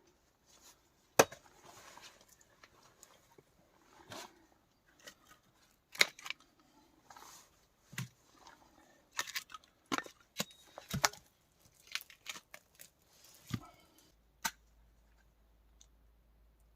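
Irregular sharp clicks and knocks from hands-on work, about a dozen of them, the loudest about a second in, with soft rustling and scraping between them; they stop about two seconds before the end.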